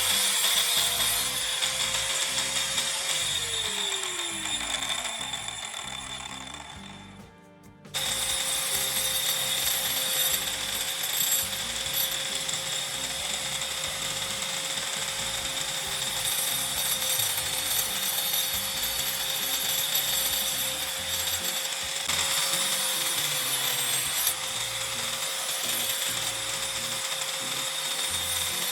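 Angle grinder motor running at a steady high whine, then switched off about three seconds in and spinning down with a falling pitch. After a short quiet gap it is suddenly running at full speed again and keeps running steadily.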